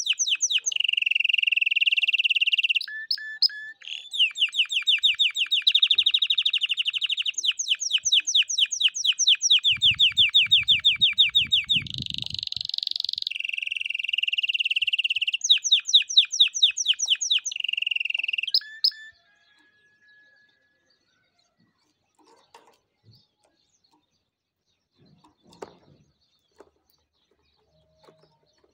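Domestic canary singing a long song of fast rolling trills, each phrase a run of rapidly repeated notes before switching to a new phrase; the song stops about 19 seconds in, leaving only faint scattered sounds.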